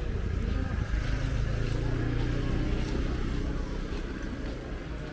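A motor vehicle's engine passing close by, rising in the first second, staying steady for a couple of seconds and then fading away.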